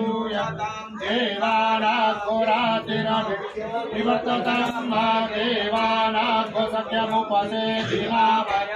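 Hindu mantras chanted in a steady, sing-song recitation over a constant low drone.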